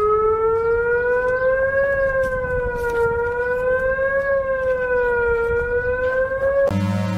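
Civil defense siren wailing, its pitch slowly rising and falling about every two and a half seconds over a low rumbling noise, then cutting off near the end as synthesizer music starts.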